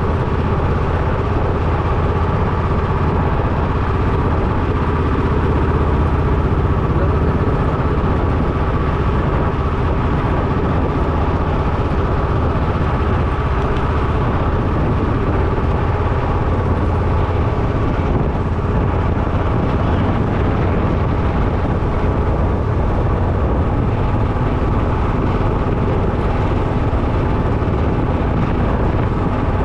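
Motorcycle riding at a steady pace: engine running evenly under heavy wind noise on the action camera's microphone, with no changes in speed or pitch.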